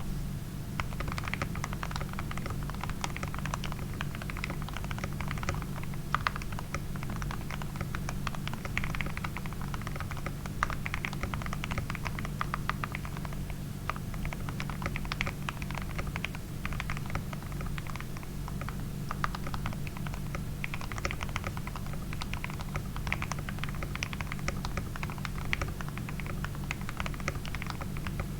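Continuous typing on an RK100 mechanical keyboard with lubed Gateron Milky Yellow linear switches, foam in the case, a tempest mod and PBT keycaps: a steady stream of key presses with a deep, thocky sound, starting about a second in, over a steady low hum.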